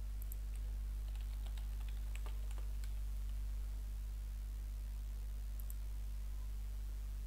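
Computer keyboard typing: a short run of keystrokes from about one to three seconds in, then two quick mouse clicks later on. A steady low electrical hum lies under it throughout.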